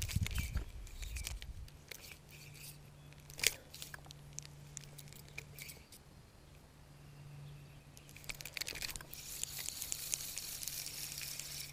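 A spinning reel being handled: scattered small clicks and rattles, with one sharp snap about three and a half seconds in. A faint steady hum sits underneath from about a second and a half in, and near the end the clicking turns into a dense crackle.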